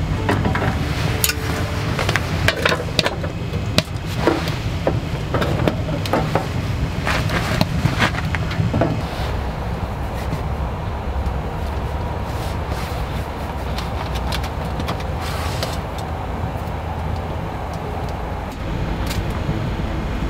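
Small wood-burning stove with its fire crackling over a steady low rumble. There are frequent sharp clicks and knocks for the first nine seconds or so, then mostly the even rumble with only a few crackles.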